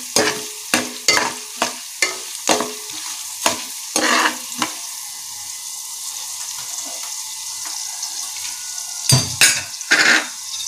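Mustard seeds, fenugreek and split chana and urad dal frying in hot oil in a pressure cooker for a tempering. The oil sizzles steadily, with sharp pops and crackles that come thick in the first half and again near the end.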